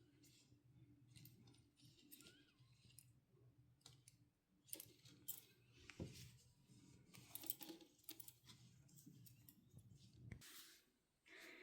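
Near silence with faint, scattered light clicks and rustles of small objects being handled.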